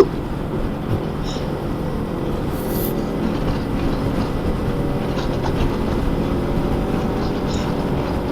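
Motorcycle engine running steadily at a moderate cruise, about 50 km/h, under a constant rumble of strong wind on the microphone. A sharp click right at the start, and a short hiss about three seconds in.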